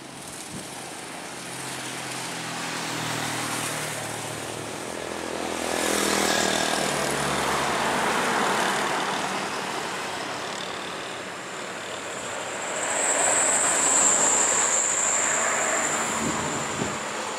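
Road traffic passing by: motorcycle and car engines rising and fading as they go past, one passing close about six seconds in with a falling pitch. A high, steady whine sounds for a couple of seconds near the end.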